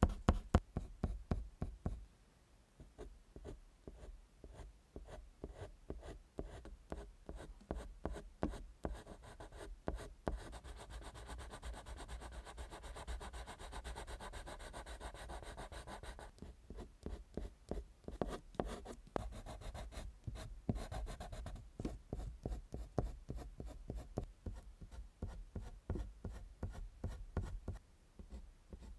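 Colored pencil scratching on paper in quick, repeated short strokes. For several seconds in the middle the strokes run together into a steady rubbing, then break back into separate strokes.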